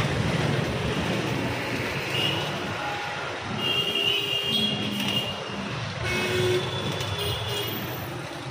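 Busy city street traffic: vehicle engines running, with a few short horn toots about halfway through.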